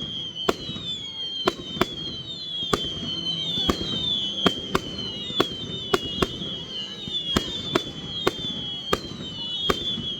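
Fireworks going off in quick succession: a steady run of sharp bangs, about two or three a second, over a continuous high whistling with repeated falling tones.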